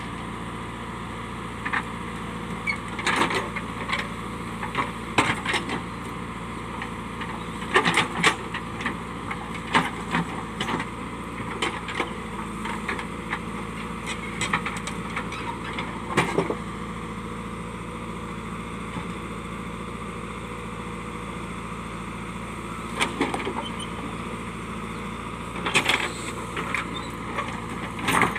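A JCB backhoe loader's diesel engine runs steadily while rocks knock and clatter against the steel bucket in irregular bursts. The knocking stops for several seconds past the middle, leaving only the engine, then comes back near the end.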